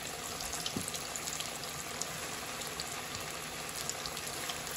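Breaded chicken nuggets deep-frying in oil on low heat: a steady sizzle with small scattered crackles and pops.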